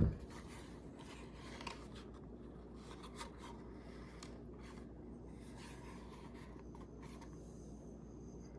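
Hands handling a pocket knife and its packaging: faint rubbing and scraping with a few light clicks, and a sharp click right at the start.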